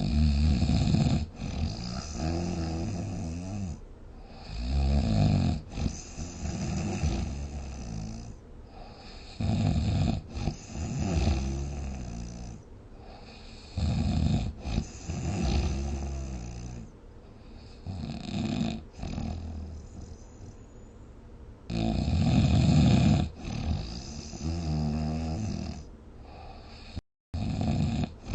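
A sleeper snoring heavily, one loud snore after another every one to four seconds, some in quick pairs, each a low pitched drone that wavers in pitch. The sound drops out briefly near the end.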